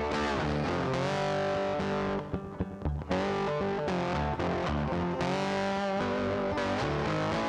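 Background music: distorted electric guitar rock with bass, with a short break in the middle before the band comes back in.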